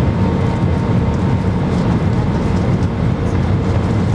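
Cabin noise of an Airbus A319 descending on approach, heard at a window seat beside the engine: a steady low rumble of engine and rushing air with a faint constant hum over it.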